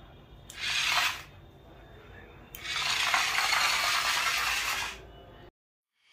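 Converted toy truck running on its small electric gear motor, whirring with its plastic body and wheels rattling over a tile floor. It makes a short burst about half a second in, then a longer run of about two seconds.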